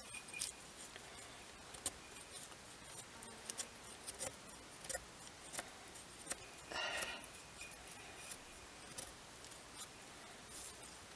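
Knife blade shaving curls off a stick of slightly damp split wood to make a feather stick: a run of short, irregular scraping strokes, with one longer scrape about seven seconds in.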